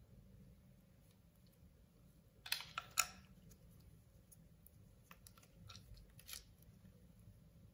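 Kinder Surprise toy's small wrapper and paper leaflet crinkling as gloved hands unwrap a toy car: a short cluster of crinkles about two and a half seconds in, then a few fainter rustles and clicks.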